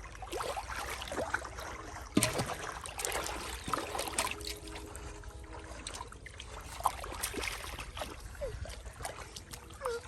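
Muddy shallow water sloshing and splashing irregularly as it is stirred by hand, with a sharper splash about two seconds in.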